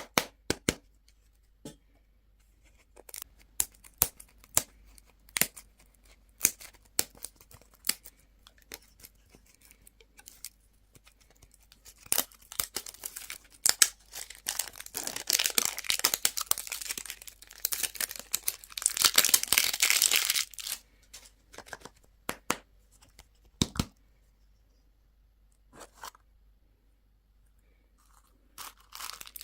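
Candy packaging being handled and torn open: scattered sharp crinkles and clicks, then a dense stretch of crinkling and tearing through the middle, fading to a few isolated clicks.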